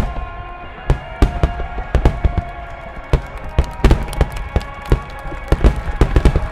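A rapid barrage of large aerial firework shells bursting, with loud sharp booms following one another every fraction of a second, each with a short rumbling tail.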